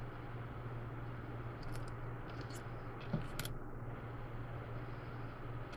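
Paper pieces and embellishments being slid and set down on a scrapbook page: a few short scratchy rustles and a small click near the middle. A steady low hum runs underneath.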